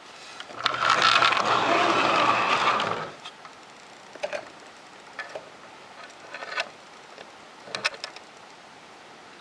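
Large plastic Transformers Metroplex figure being turned by hand. For about two and a half seconds there is a loud plastic rattle and scrape, followed by a few scattered plastic clicks.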